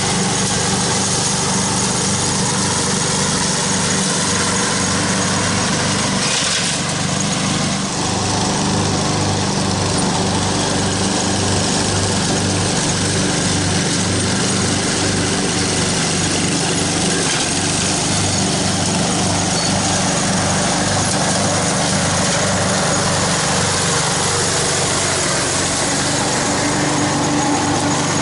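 Lawn mower engine running steadily with an even pulsing beat, its loudness holding level throughout.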